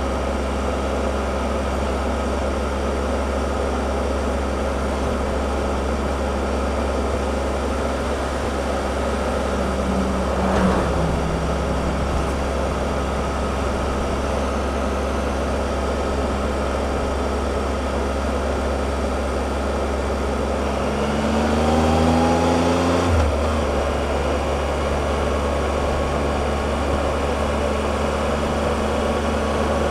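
Triumph Explorer three-cylinder motorcycle engine running steadily under way, over wind and road noise. About two-thirds of the way through, the engine note rises for a couple of seconds as the bike accelerates, then drops suddenly at a gear change.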